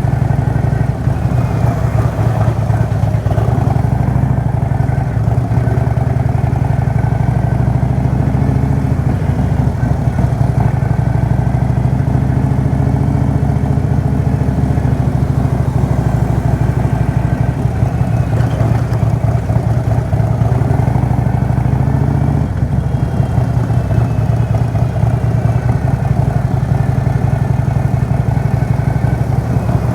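Motorcycle engine running steadily while riding, its pitch shifting a little now and then.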